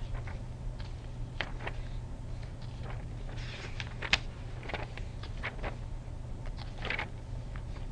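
Scattered light clicks and faint brief rustles of desk handling, irregularly spaced, over a steady low electrical hum.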